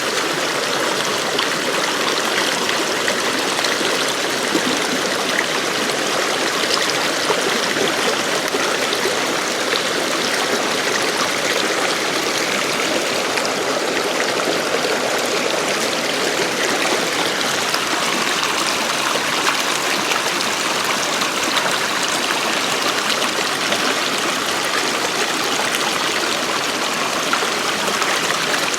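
Natural stream flowing over rocks: a steady rush and babble of running water.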